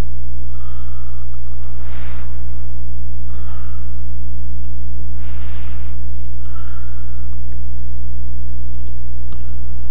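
Loud steady electrical hum, a low drone with several overtones, typical of mains hum picked up by the recording setup. Faint short rushes of noise come about two and five and a half seconds in.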